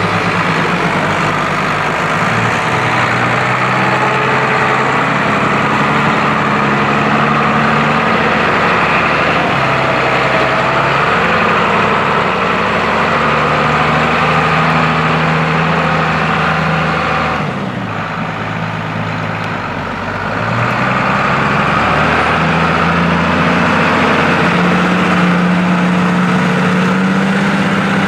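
New Holland M135 tractor's six-cylinder diesel engine working under load, pulling a plough through mud. The engine note shifts in pitch now and then and is briefly quieter about two-thirds of the way through.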